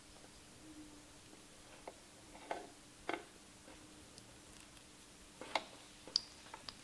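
Light clicks and taps of small plastic plugs and a power cord being handled, a handful of scattered clicks over a faint steady hum.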